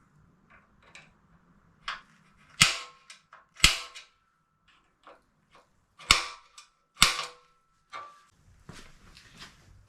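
Four sharp, loud metal strikes in two pairs, each with a brief ring, and some lighter clicks of tool handling between them.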